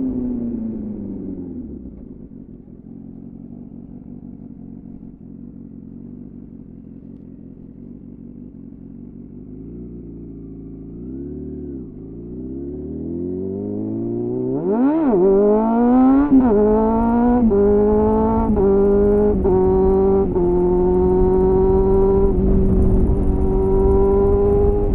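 Suzuki GSF 600 Bandit's inline-four through a loud aftermarket SC-Project CR-T-style exhaust. The revs fall off at the start, then it runs quietly at low revs. After a short throttle blip and a sharp rev spike it accelerates, the pitch climbing and dropping in several steps through gear changes, and near the end it settles to a steady note.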